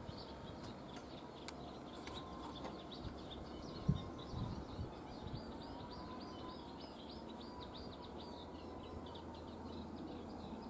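Birds chirping and singing steadily at low level, over a faint wavering whine, with a soft low bump about four seconds in.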